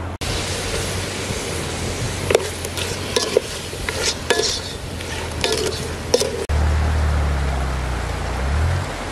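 Chicken pieces sizzling in a metal pot as a wooden spoon stirs them, with several sharp knocks of the spoon against the pot. About six and a half seconds in, this gives way to a low steady rumble.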